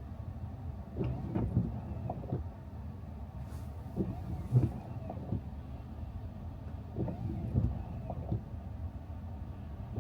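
Car driving along snow-covered streets: a steady low road rumble, with irregular dull thumps as the car rolls over bumps in the road.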